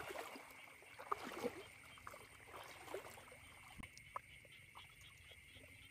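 Faint night ambience of a rice paddy: a steady high-pitched insect drone, with scattered small ticks and light splashes of water, most of them in the first second and a half.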